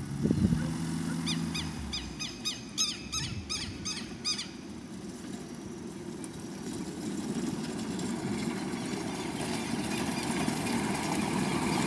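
A bird calls a quick run of short chirps for a few seconds. Then an ultralight trike's engine drones, growing steadily louder as the aircraft taxis toward the listener.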